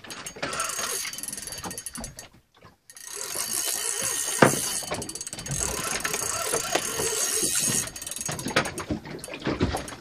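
Large saltwater spinning reel clicking and whirring rapidly under load while a hooked fish is fought on a heavily bent rod, stopping briefly about two seconds in before starting again.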